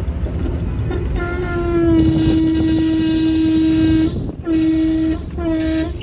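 Car horn honking: one long blast of about three seconds, then two short toots, over the low rumble of the car and traffic.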